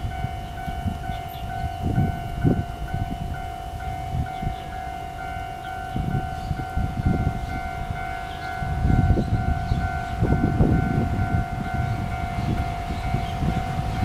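Level-crossing warning bell sounding continuously, a steady electronic ringing with a quick repeating pulse, over a low rumble that grows louder about nine seconds in.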